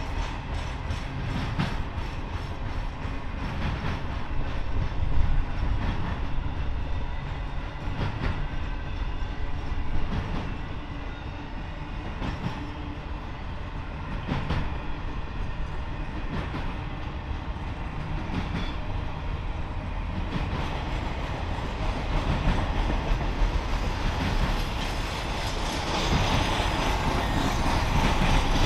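Freight train cars rolling past, their wheels clicking over the rail joints over a steady rumble, growing louder near the end.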